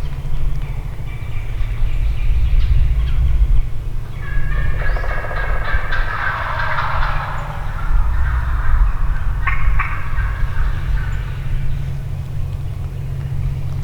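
A wild turkey gobbler gobbles once, about five seconds in, over a steady low rumble.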